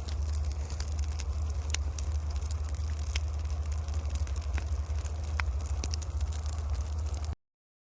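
Burning paddy straw crackling and popping, with irregular sharp cracks over a steady low rumble. The sound cuts off abruptly near the end.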